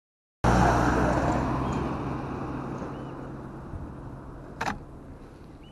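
Motor vehicle driving away, its engine hum and road noise cutting in abruptly and then fading steadily, with a sharp click about four and a half seconds in.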